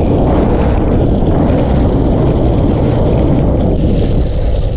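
Skateboard wheels rolling fast on asphalt, a loud steady rushing noise, with wind buffeting the microphone.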